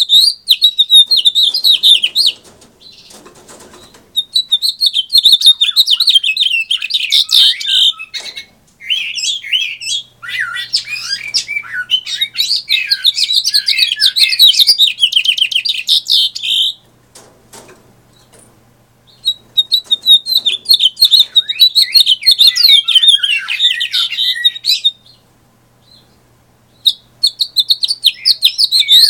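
Captive male house finch singing: long, rapid, warbling song phrases, repeated in several bouts with short pauses between them.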